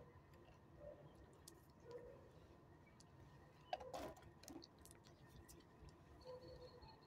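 Near silence with scattered faint clicks. About four seconds in comes one brief louder sound as a dog snaps a small treat up off a concrete table.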